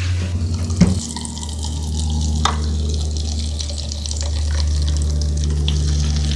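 Hot chili oil sizzling and bubbling in a wok as it is stirred with a spatula and poured into a bowl. A sharp click about a second in, from the gas stove knob being turned, and a steady low hum underneath.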